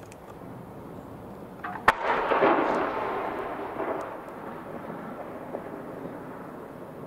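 Aerial firework shell bursting: one sharp bang about two seconds in, followed by a rolling, crackling rush of noise that fades over the next two seconds or so.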